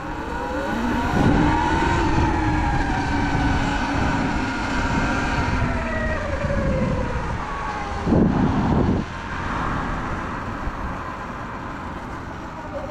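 Sur-Ron electric dirt bike's motor and belt drive whining under way, the pitch rising about a second in and then slowly falling with speed, over a heavy low rush, with a louder burst of rushing noise about eight seconds in. The rider finds the belt louder than it should be, with only 68 miles on it, and suspects dirt or water built up in the belt.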